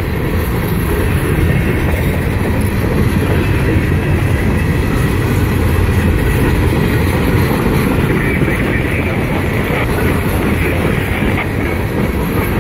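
Loaded coal gondola cars rolling past slowly, their steel wheels on the rails making a steady, mostly low rumble.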